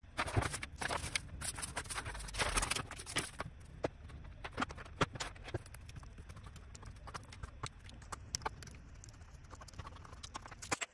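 Paper rustling and irregular light taps and clicks as a sheet of paper and a colour pencil are handled on a wooden drawing board, busiest in the first few seconds, then sparser taps.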